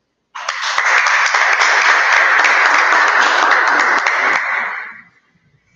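A small audience applauding, starting a moment in and dying away after about five seconds.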